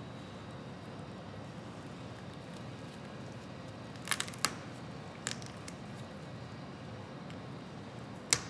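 A few sharp clicks and snips from dissecting instruments working on a pigeon carcass in a metal tray, over a steady low room hum: a quick cluster of three about four seconds in, another a second later, and the loudest one near the end.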